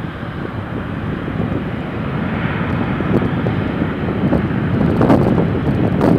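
Jet airliner's turbofan engines, the sound growing steadily louder over a few seconds, with gusty wind buffeting the microphone.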